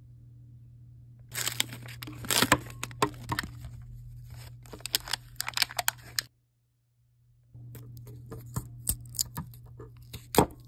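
Clear plastic wrapping being torn and crinkled off a mascara tube by hand: runs of crackling and tearing, breaking off into about a second of dead silence a little past the middle, then more crinkling. A low steady hum lies underneath.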